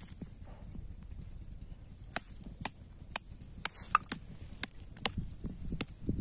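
Wooden stick striking snails on hard dry ground, cracking their shells: a run of sharp knocks about two a second, starting about two seconds in.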